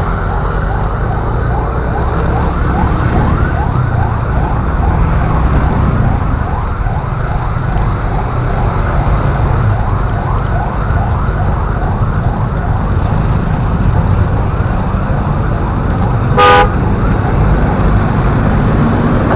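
A siren yelping in fast rising sweeps, about three a second, over the steady rumble of riding in traffic. A vehicle horn gives one short blast near the end.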